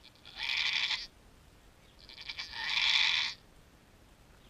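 Doe goat in labour bleating twice: a short call, then a longer, louder one about two seconds in.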